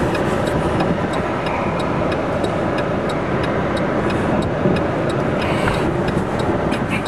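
Steady noise inside a car in the rain, with the windshield wipers sweeping across the glass and faint ticks over a constant rush.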